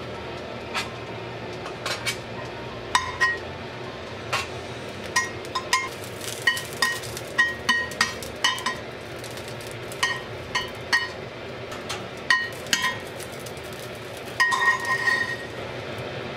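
Kitchen tongs clinking against a cast-iron frying pan as sausages are turned and moved in it. The clinks are irregular and short-ringing, with a quick cluster of them about three-quarters of the way through.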